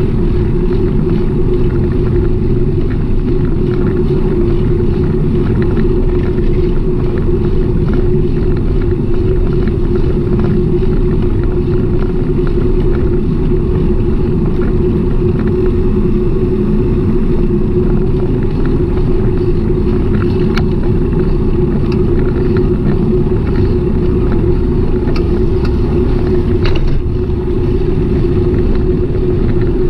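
Steady low rumble of wind and road noise from a moving ride, with a constant hum underneath and a couple of brief clicks about twenty and twenty-seven seconds in.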